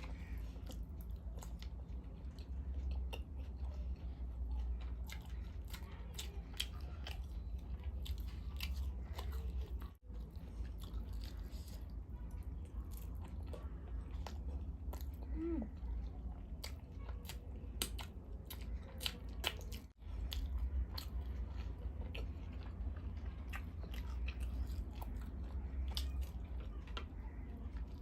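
Close-miked eating sounds: biting and chewing of noodles and momos, with many short wet clicks and smacks, over a steady low hum. The sound cuts out briefly twice, about ten and twenty seconds in.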